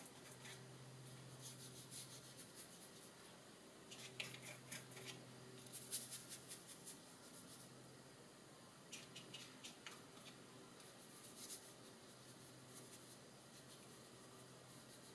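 Faint taps and scrapes of a watercolour brush working in a paint pan, against a glass water jar and on paper, in short scattered clusters over a faint steady low hum.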